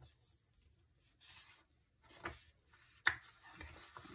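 Faint rustling and rubbing of fingers pressing paper planner stickers onto a page and peeling them up, with one short sharp crackle about three seconds in.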